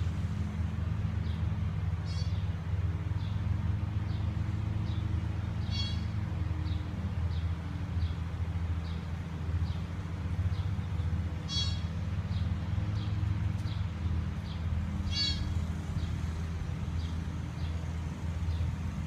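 Newborn deer fawn calling: four short, high-pitched calls several seconds apart, over a steady low hum.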